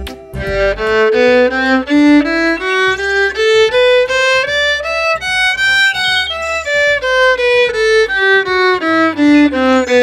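Background music: a melody of short, evenly paced notes that climbs step by step for about five seconds and then steps back down, over a low repeating bass.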